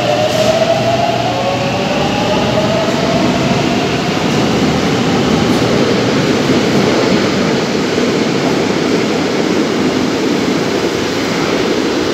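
Madrid Metro trains running through an underground station. A motor whine falls in pitch in the first couple of seconds, then steady wheel and rolling noise follows. Near the end the tone rises a little as another train moves along the platform.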